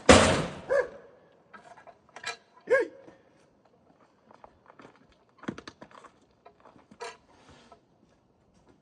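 A loud bang right at the start, a second sharp knock about three seconds in, then scattered lighter knocks and clatter.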